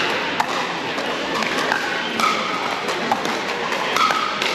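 Pickleball paddles hitting the hard plastic ball, sharp pops about once a second from this and nearby courts. They sound over a steady hubbub of voices echoing in a large indoor hall.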